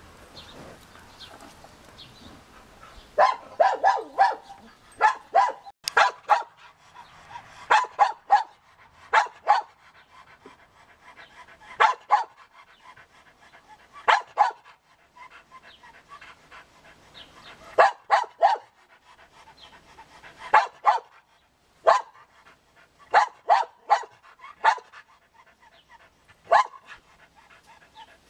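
A dog barking in short runs of one to three sharp barks, repeated every second or two, starting about three seconds in.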